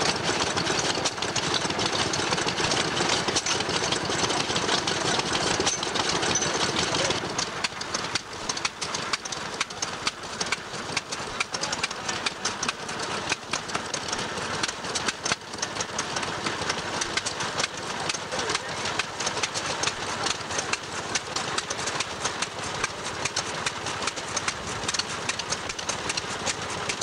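Several vintage stationary engines running together, a fast, busy clatter of firing and mechanical knocks. The sound drops in loudness about seven seconds in.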